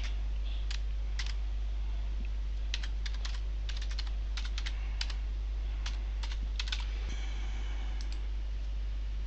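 Computer keyboard being typed on, keystrokes coming in short irregular clusters that stop about seven seconds in, over a steady low hum.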